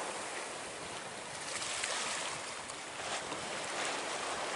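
Choppy sea waves rushing and splashing past a sailboat under way, with wind, the noise swelling and easing.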